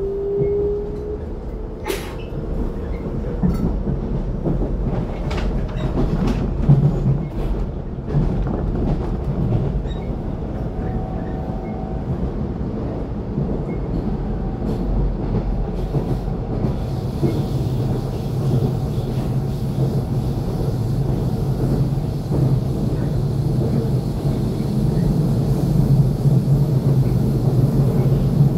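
Interior of a moving electric commuter train: steady running rumble of wheels on rail, with a series of clicks over rail joints and switches in the first several seconds. A rising motor whine near the start marks the train accelerating away from the station.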